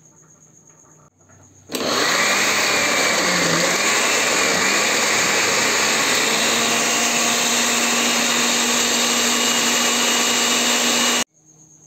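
Kitchen blender switched on about two seconds in, puréeing a chili salsa of chiltepín, árbol and serrano chiles with garlic. It runs loud and steady, its pitch wavering at first and then settling, and it cuts off abruptly near the end.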